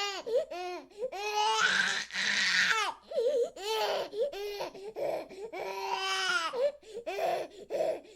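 Baby crying: a run of short, high-pitched wails and sobs, each one rising and falling in pitch, with a couple of longer held wails among them.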